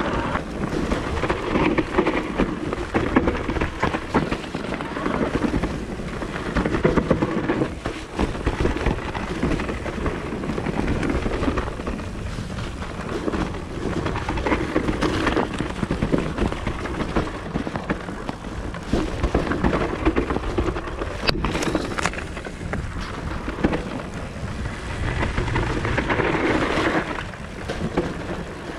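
Wind rushing over the camera microphone with the rumble and rattle of a Propain Ekano electric mountain bike riding down a dirt trail, surging and easing with the terrain. A single sharp click comes a little past two-thirds of the way through.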